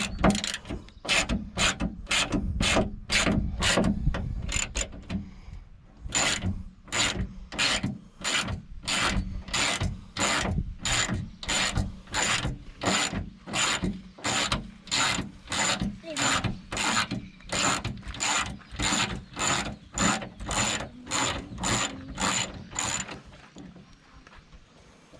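Ratchet wrench with an 8 mm socket clicking as it backs out the bolts holding an antenna base plate. The clicks come quickly at first, then settle to an even two or so a second and stop near the end.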